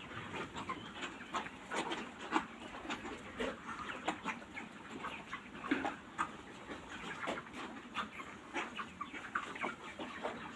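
A shed full of broiler chickens, about 40 days old, giving many overlapping short clucks and chirps without a break.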